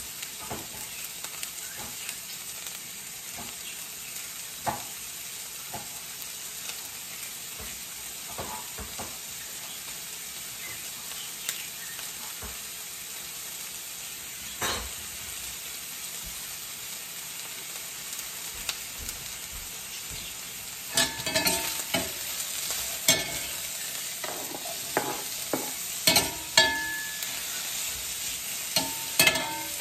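Sliced onions sizzling in a stainless steel frying pan, a steady hiss with scattered pops. From about two-thirds of the way in, a metal utensil clinks and scrapes against the pan with short ringing notes as more onion goes in and is stirred.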